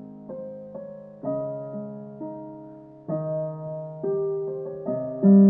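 Background music: slow, soft piano, notes and chords struck every second or so and left to fade.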